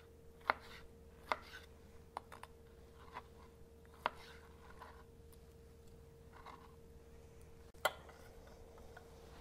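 Kitchen knife cutting soft canned green chiles on a plastic cutting board: a few separate sharp taps of the blade against the board, spaced irregularly, the loudest near the end.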